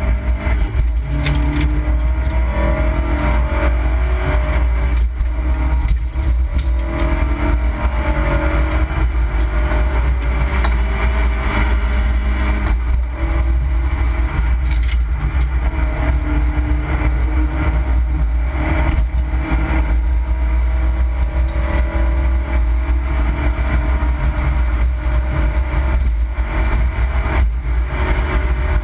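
Opel Corsa B rally car heard from inside the cabin at full pace on a stage, its engine revving up again and again and dropping back at each gear change, over a heavy rumble of tyres and road. A few sharp knocks stand out here and there.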